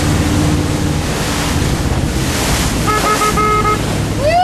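Motorboat under way: its engine running, with water rushing past and wind buffeting the microphone. A brief run of short pitched notes about three seconds in.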